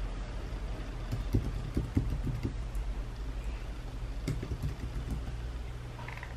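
Typing on a slim computer keyboard: two short runs of key taps, the first about a second in and the second around four seconds in, over a steady low background rumble.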